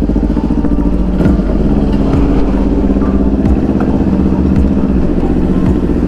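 Kawasaki Ninja 400's 399 cc parallel-twin engine running steadily at low revs.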